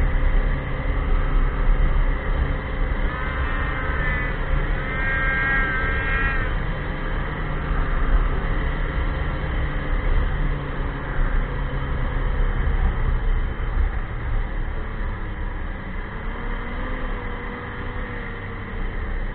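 Ski-Doo Expedition LE snowmobile engine running under way, a steady loud drone with a low rumble, while a brief higher whine rises and falls about three to six seconds in. The low rumble eases off a little about two-thirds of the way through.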